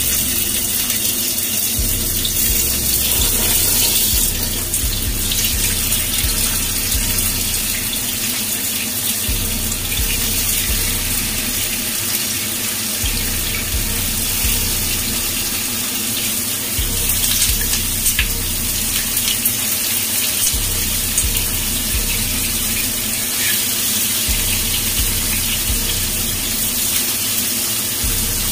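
Tofu sizzling in hot oil in a frying pan as the pieces are laid in, a steady hiss with a few sharp crackles.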